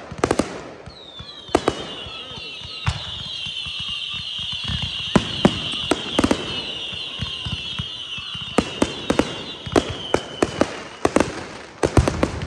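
Aerial fireworks going off in a display: repeated sharp bangs, bunched near the start, around the middle and again near the end. A high, shrill whistling runs through most of it and fades out about ten seconds in.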